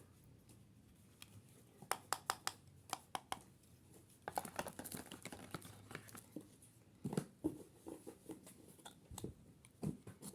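Unboxing sounds: a quick run of sharp clicks, then crinkling and rustling as packaging is handled and opened.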